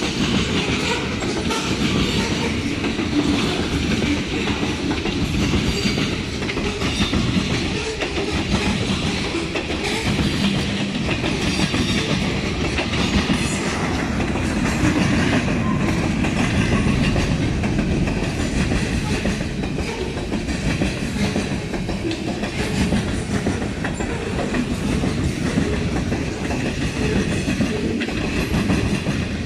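Freight train cars (covered hoppers, then tank cars) rolling past: a steady rumble of steel wheels on rail, with irregular clicks as the wheels cross rail joints.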